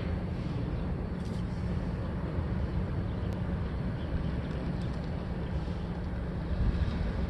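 Steady low rumble of a freight train's last cars rolling away into the distance, with wind buffeting the microphone.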